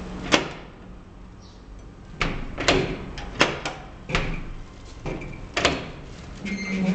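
An old elevator with no car doors, making a series of sharp clunks and knocks from its mechanism and the landing doors as it runs, about eight in all, some in close pairs. A short steady hum sounds near the end.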